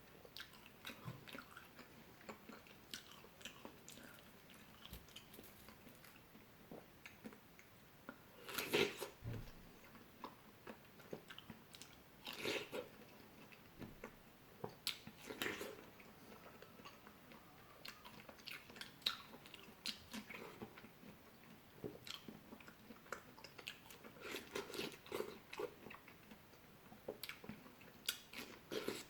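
A person biting and chewing fresh fruit close to the microphone: many short wet clicks and crunches, with a few louder bites scattered throughout.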